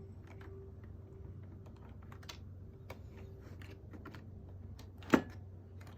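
Light, irregular plastic clicks and taps from LEGO parts being handled, with one sharp, much louder click about five seconds in.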